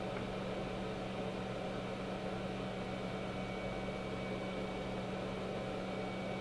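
Steady machine hum with an even hiss, like a small fan-driven unit running, with a faint thin high tone over it; it does not change.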